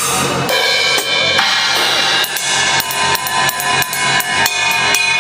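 Acoustic drum kit with Sabian cymbals being played: cymbal crashes ringing out, then from about two seconds in a quick run of drum and cymbal hits, about five a second.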